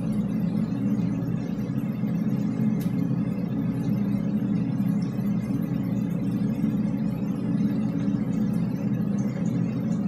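Steady low rumble of background noise inside a drainpipe, picked up by a recorder lowered down the pipe and muffled under a cushion. No horn blast stands out. There is one faint click about three seconds in.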